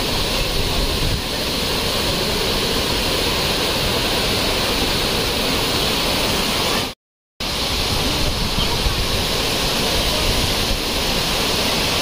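Steady rushing of a waterfall and its rocky stream in heavy monsoon flow. The sound cuts out completely for about half a second just past the middle, then resumes.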